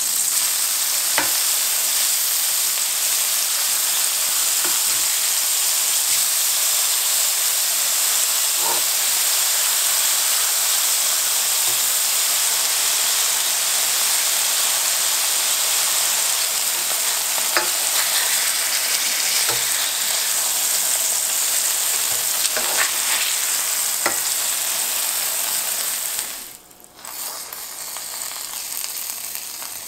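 Beef burger patties searing over medium-high heat in a stainless steel skillet: a steady sizzling hiss of hot fat with scattered pops and spatters. Near the end the sound drops out briefly and comes back quieter as a burger bun toasts face-down in the leftover fat.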